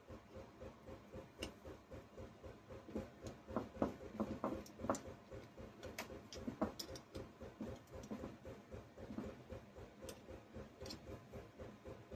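Light clicks and clinks of small parts and tools being handled, loudest in the middle, over a steady background ticking of about three to four beats a second.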